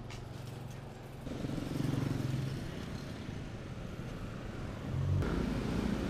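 Road traffic: motor vehicle engines running close by, one swelling up about a second in and another, louder, coming in about five seconds in.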